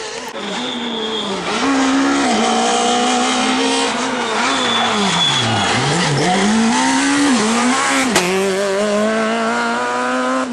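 Peugeot 306 rally car's engine revving hard, the revs climbing and dropping repeatedly through gear changes and lifts. They sink lowest about six seconds in as it slides round a hairpin, then pull up again. There is tyre squeal and a single sharp crack about eight seconds in.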